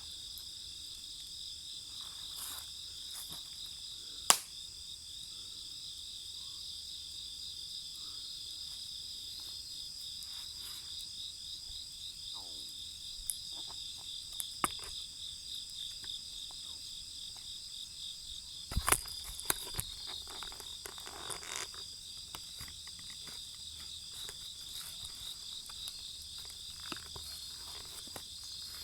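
Chorus of crickets trilling steadily, with scattered sharp crackles and pops from a wood campfire. The loudest pop comes about four seconds in, and a cluster of pops comes a little past halfway.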